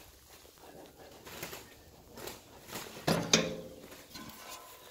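Spring-loaded galvanised steel bolt on a trailer's fold-down step being worked by hand: faint clicks, then a sharp metallic clank with a short ring about three seconds in.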